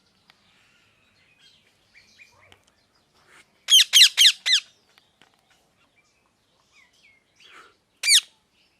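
Ringneck parrot screeching: a quick run of about four loud high-pitched calls, each falling in pitch, a little under four seconds in, then a single call of the same kind near the end, with soft chirps in between.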